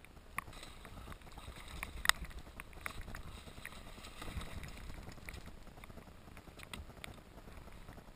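Water splashing and scattered clicks and knocks of fishing gear on a plastic kayak as a coho salmon is netted alongside, with one sharp click about two seconds in, over a low rumble of wind on the microphone.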